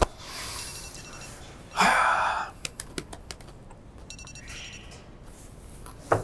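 A person's breathy sounds: a soft hiss of breath, then a loud, sharp, noisy exhale about two seconds in, with a few small clicks around it.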